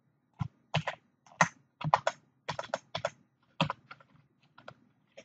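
Typing on a computer keyboard: an uneven run of separate keystrokes, fainter over the last second or so.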